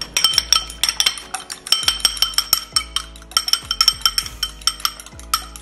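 A metal fork beating eggs in a glass bowl, clinking rapidly against the glass with a ringing tone. Under it runs background music with a deep bass that drops in pitch every couple of seconds.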